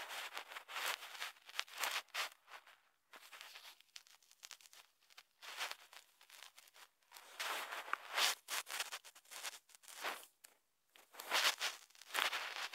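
Soft, irregular rustling and scratching handling noise close to the microphone, coming in uneven bursts with short clicks between them.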